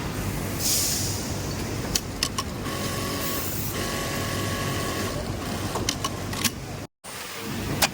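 Industrial sewing machines running, a steady mechanical hum with short spells of stitching and a few sharp clicks. The sound cuts out abruptly for a moment near the end.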